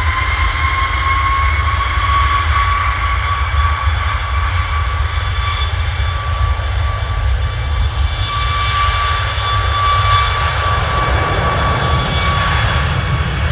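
Boeing 737 MAX 8's CFM LEAP-1B turbofans at takeoff thrust during the takeoff roll: a loud, steady jet roar with a high fan whine held at one pitch and a deep rumble underneath.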